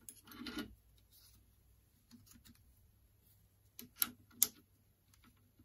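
Chuck key turning in a lathe's three-jaw chuck with a short metallic scrape, with the lathe motor stopped. A few light clicks follow, then two sharp metal clicks about four seconds in as the tool post is set.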